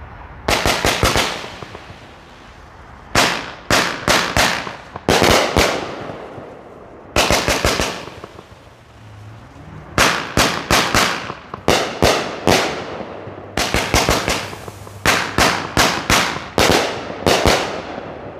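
Hammer & Anvil Freedom Finder consumer firework going off in volleys of rapid, sharp bangs. Each volley is a quick string of several cracks that die away, and the volleys are separated by short pauses.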